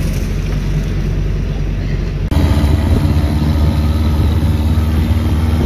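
Vintage military vehicle engines running steadily: a low engine rumble, then, after a sudden cut about two seconds in, the louder, deeper running note of a WWII Jeep's four-cylinder engine as it drives.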